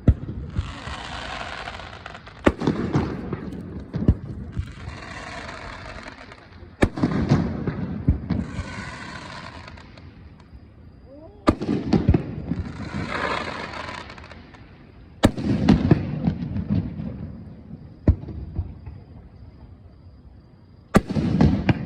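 Aerial fireworks bursting over a lake: sharp bangs every few seconds, each followed by a low rumbling echo, with long crackling hisses from the shells between several of the bangs.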